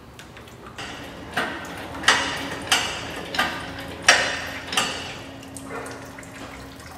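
Hand-pumped hydraulic engine hoist raising an engine on its chain, with a metallic clank at each pump stroke, about eight strokes, roughly three every two seconds.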